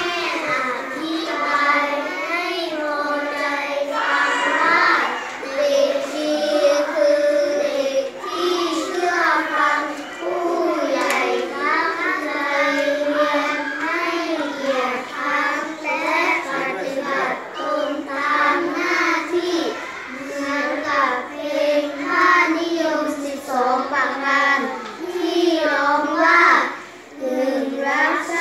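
A class of young children reading a Thai verse aloud in unison, in a sing-song chant of many voices together, with a brief pause near the end.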